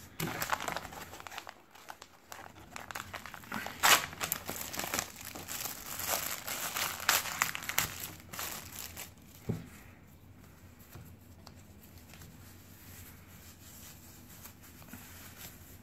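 Clear plastic film wrapper crinkling as it is peeled and pulled off a gel wrist-guard insert, busiest and loudest in the first nine seconds or so, then settling into quieter handling.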